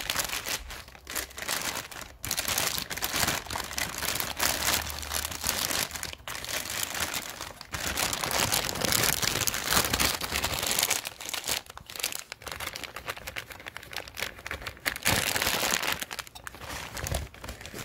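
Clear plastic bag crinkling and rustling as it is pulled off an e-bike motor by hand, on and off with short pauses.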